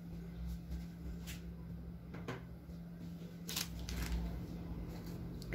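Faint scrapes and light clicks of a silicone spatula spreading melted milk chocolate over a cake in a metal baking tray, a handful of short sounds spread out over a low steady hum.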